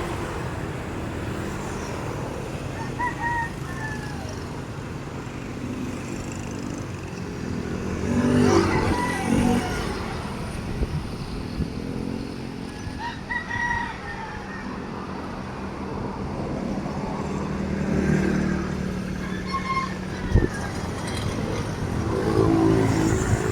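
A backhoe's diesel engine runs steadily, swelling in level now and then as it works. A rooster crows several times over it.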